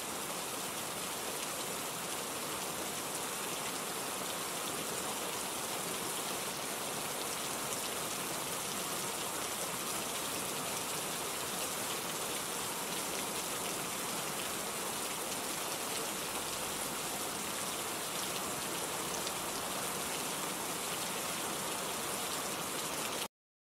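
Steady rain falling, an even, unbroken hiss of many drops that stops abruptly at the very end.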